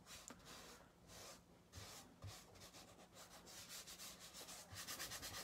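Faint rubbing strokes of a gloved fingertip spreading acrylic paint across canvas, quickening into rapid short strokes near the end.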